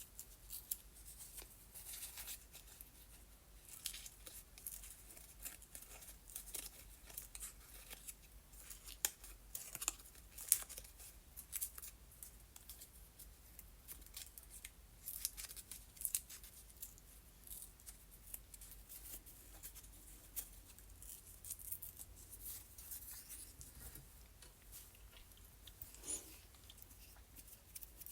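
Paper being torn by hand: faint short rips and crackles of stamped paper, scattered irregularly throughout, as words are ripped out of a sheet.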